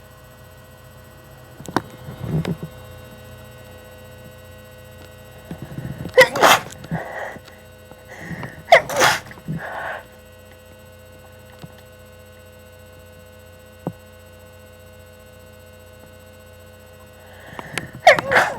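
A person sneezing from a pollen allergy. There are three loud sneezes, about six, nine and eighteen seconds in, with quieter breathing sounds between them.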